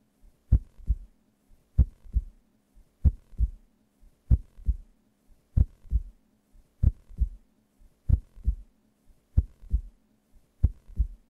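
Heartbeat sound effect: nine slow double thumps, a strong beat followed by a softer one, about every second and a quarter, over a faint steady hum.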